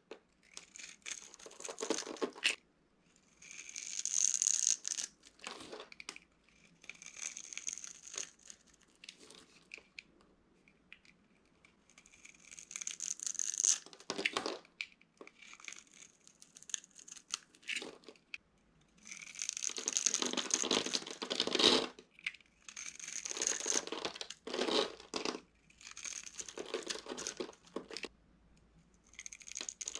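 Dry soap roses and cubes being crushed, crunching and crumbling in irregular bursts with short pauses between them.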